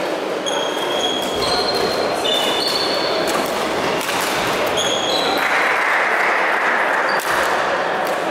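Badminton shoes squeaking in short high chirps on a sports-hall floor and shuttlecocks being struck with sharp clicks, over the reverberant din of a busy hall, which grows louder about five seconds in.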